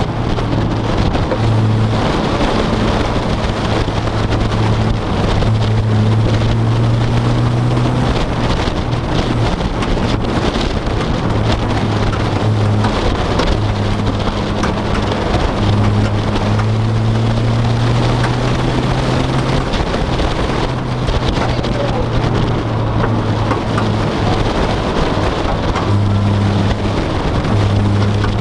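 Steady road and wind noise from inside a moving vehicle, with a low engine drone that fades in and out every few seconds.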